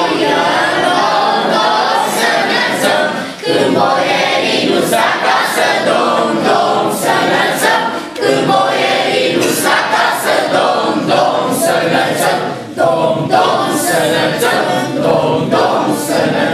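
A group of children singing a Romanian Christmas carol (colindă) together, unaccompanied. Short breaks between phrases come about every four to five seconds.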